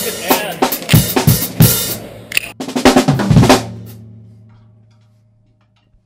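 Drum-kit music track: a busy beat of snare and bass drum hits that stops about three and a half seconds in. Its last hit rings on as a low tone that fades away over the next two seconds.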